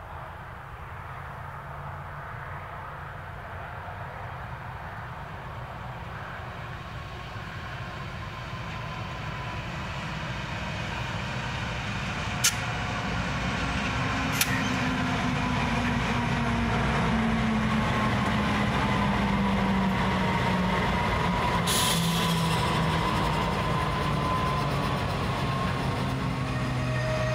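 Two NR-class diesel-electric freight locomotives approach and pass, their engines growing steadily louder over the first half. The rumble of loaded steel wagons rolling by follows. Two sharp clicks come about halfway through.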